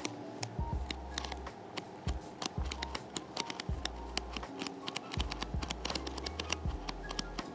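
Paper pages of a paperback manga volume being flipped through, with a quick run of crisp page flicks and rustles.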